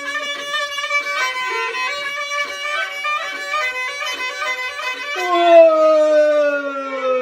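Violin-led folk music: a run of steady notes, then about five seconds in a long, strong note that slides slowly downward.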